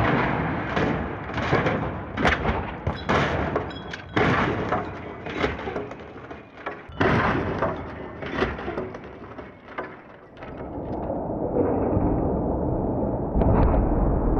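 A Volvo XC90 rolling over in a crash test: a series of heavy crashing impacts as the SUV's body strikes the pavement while it tumbles. From about ten seconds in there is a steady rushing noise, with a heavy thump near the end.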